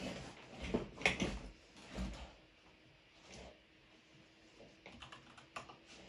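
Keys of an IQUNIX A80 mechanical keyboard with Gateron Yellow linear switches clacking as someone types: a few heavier knocks in the first two seconds, then a quicker run of lighter keystrokes near the end.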